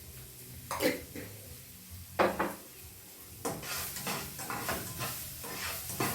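A cooking utensil knocks sharply against a frying pan twice, then from about three and a half seconds in stirs and scrapes vegetables around the hot oiled pan in a continuous scratchy clatter.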